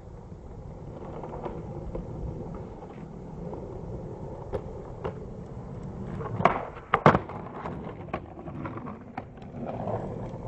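Skateboard wheels rolling on a hard court surface, then two loud sharp clacks about half a second apart about two-thirds of the way in: the tail popping and the board landing in an ollie over an obstacle. A few lighter board clicks fall around them.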